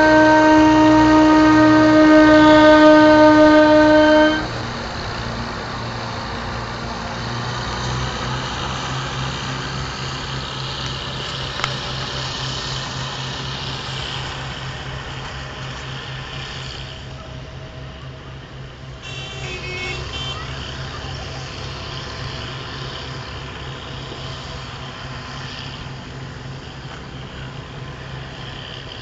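Matheran Light Railway narrow-gauge diesel locomotive sounding its horn, one loud held note that stops about four seconds in. Its engine then keeps running with a steady low throb.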